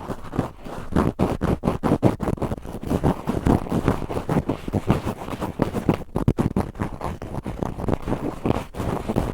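Cotton swab rubbing and scraping roughly at the ear of a binaural microphone, in quick, uneven strokes several times a second.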